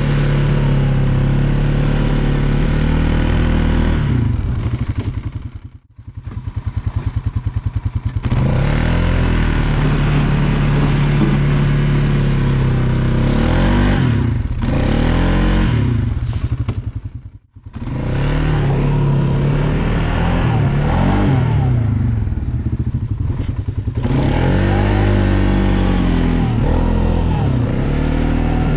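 Polaris Sportsman 570 ATV's single-cylinder engine running under load and revving up and down again and again while plowing snow. Twice the sound drops away almost to nothing for a moment, then comes back.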